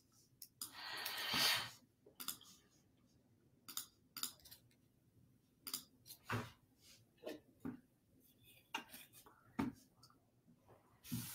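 Scattered short clicks of a computer mouse and keyboard while an address is typed into a map search. There is a louder burst of hiss-like noise about a second in, and a sip from a cup near the end.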